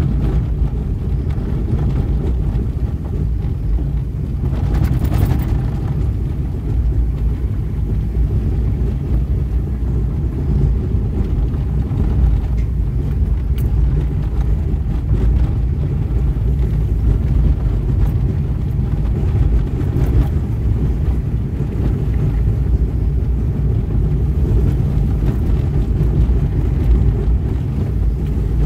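Steady low rumble of a car driving, heard from inside, with no distinct events.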